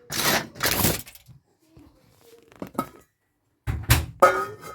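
Cooking pot and utensils being handled: short noisy scrapes and knocks, two in the first second, a few faint clicks in the middle, and a louder clatter about four seconds in.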